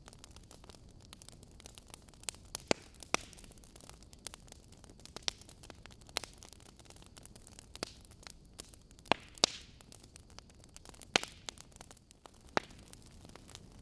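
Logs burning in a fireplace, crackling with sharp, irregular pops over a soft steady hiss. A few louder pops stand out, the strongest about nine seconds in.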